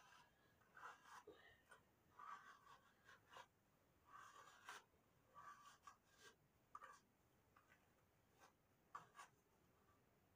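A hairbrush dragged through thick curly hair: a string of faint, short, scratchy strokes at an uneven pace, roughly one or two a second.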